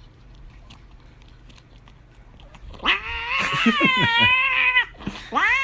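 A cat yowling: a long, wavering call about three seconds in, then a shorter meow near the end.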